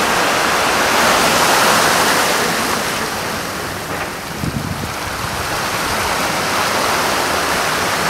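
Steady rushing wash of small waves breaking on the sand, with a few low thumps about halfway through.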